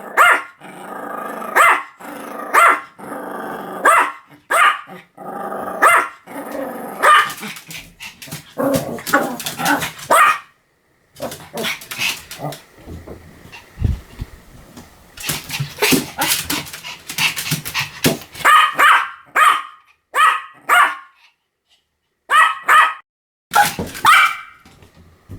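Pomeranian barking over and over in runs of short, sharp barks, with a lull about halfway through before the barking starts again.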